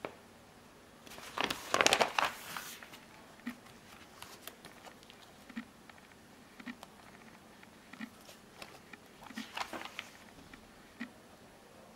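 Paper handled on a wooden table: a loud rustle of sheets being moved about a second in, then light ticks and taps, and another rustle as booklet pages are turned near the end.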